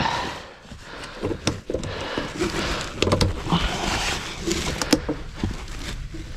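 Rustling of clothing and fibreglass insulation batts, with scattered light knocks and clicks, as a person shifts about on wooden attic joists.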